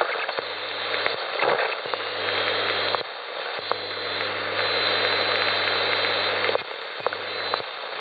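Malahit DSP shortwave receiver being tuned across the 3 MHz AM band: steady band hiss and static, with a low hum of AM carriers that cuts in and out several times as the knob is turned, and a few faint ticks.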